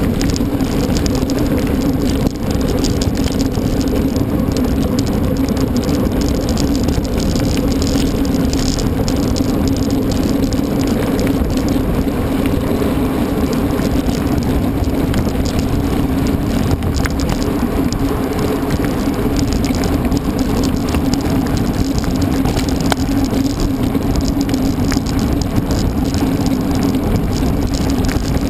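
Mountain bike ridden at speed during a marathon race: a steady, loud rolling rumble and hum from the tyres, with rattling from the chain and frame.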